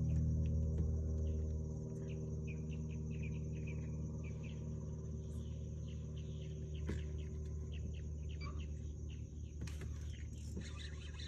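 A steady high insect drone with scattered bird chirps over a low steady hum; the hum drops in level about two seconds in.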